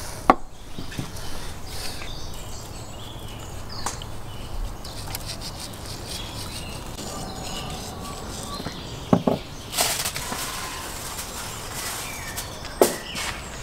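A few sharp clicks and knocks over a steady, quiet outdoor background.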